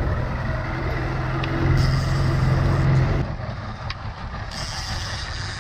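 Outboard motor running at trolling speed, a steady low drone under the rush of water along the hull and wind; the drone drops back about three seconds in.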